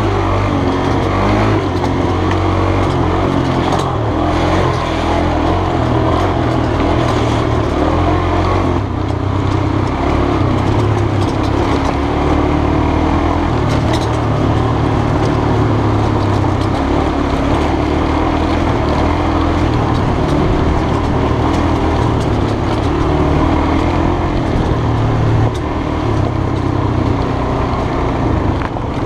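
Honda trail motorcycle engine running as the bike rides along a rough dirt track, its pitch rising and falling with the throttle.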